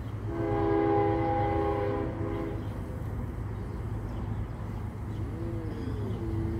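Distant diesel freight locomotive's air horn sounding a chord in one long blast of about two seconds, then a second, shorter blast starting near the end, over a steady low rumble.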